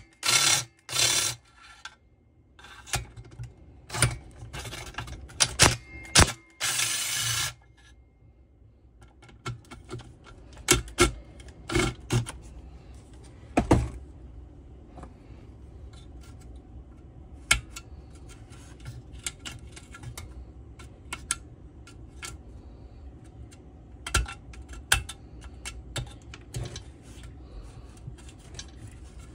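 Hand tools and metal parts of a Stihl cut-off saw clicking and clinking during hands-on disassembly. There is a cluster of louder clicks and noise bursts, some lasting about a second, in the first seven seconds, then scattered lighter clicks.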